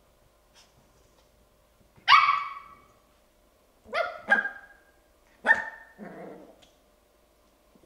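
Bichon Frise puppy barking: four sharp barks, the loudest about two seconds in, then a quick pair, and a last bark that trails off into a short, low, rough sound.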